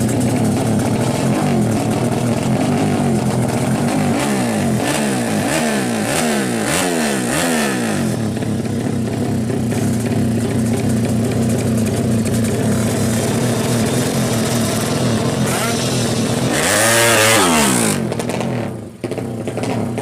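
Drag-racing motorcycle engine running with a steady note, blipped in about five quick throttle revs between four and eight seconds in, then given one louder rev that rises and falls near the end.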